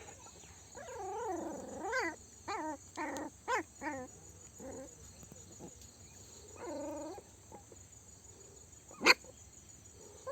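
Eleven-day-old puppies whimpering and squealing: a quick run of short, wavering whines, then one longer whine a few seconds later. A single sharp click comes near the end.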